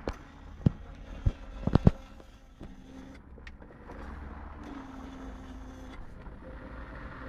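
Aprilia RS 50 two-stroke engine with a starting problem that a new spark plug has not cured: a few sharp knocks in the first two seconds, then a low steady drone.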